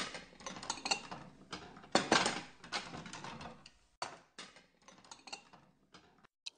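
Irregular light clicks and clatter of tableware being handled on a refectory table, busiest in the first few seconds and thinning out toward the end.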